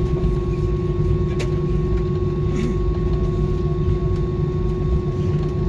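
Airliner cabin noise on the ground: a steady low rumble with a constant hum, and a single sharp click about a second and a half in.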